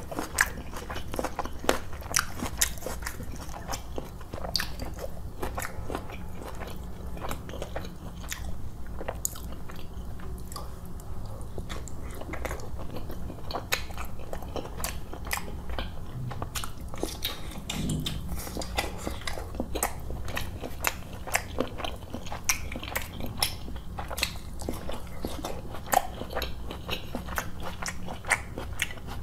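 Close-miked chewing of roti and chicken curry, with many short mouth clicks and smacks in a steady run, and a brief low hum about 18 seconds in.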